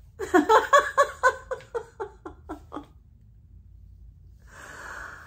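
A woman laughing: a run of about a dozen quick "ha" pulses that fade over nearly three seconds, then a soft breathy sound near the end.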